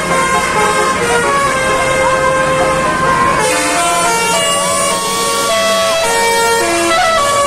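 Basuri telolet multi-tone horns on a vehicle playing a melody: a run of held notes stepping up and down in pitch, with a slow rising slide partway through.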